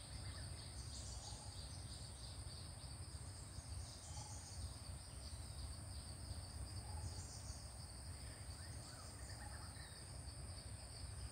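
Steady high-pitched drone of insects, crickets or cicadas, in a rubber plantation, over a low rumble, with a faint short call repeating about every two and a half seconds.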